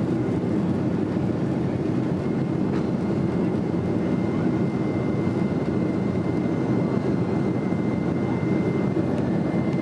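Boeing 767-400ER climbing out after takeoff, heard from inside the cabin: a steady roar of the jet engines and airflow through the fuselage. A faint thin whine joins the roar about two seconds in.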